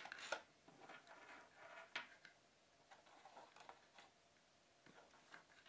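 Faint, scattered light ticks and taps, the clearest about two seconds in: an earphone cable and its metal 3.5 mm plug being handled and laid down on a wooden table.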